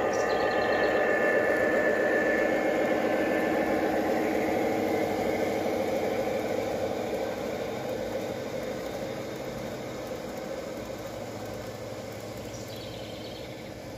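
G-scale model train with diesel locomotives pulling coal hoppers, running along outdoor track: a steady rumble of wheels and motors, loudest near the start and fading away as the train passes and moves off.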